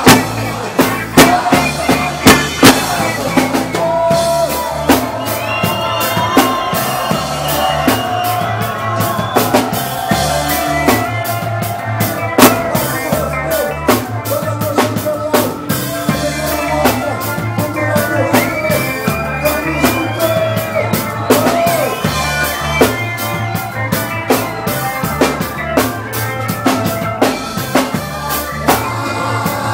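Live reggae band playing: drum kit with snare and rimshot hits over a repeating bass line, with electric guitar and keyboard, and a lead vocal singing over the top.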